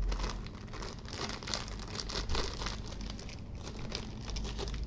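Plastic parts bag crinkling and rustling with small irregular crackles as it is handled and its staples are pulled out to open it.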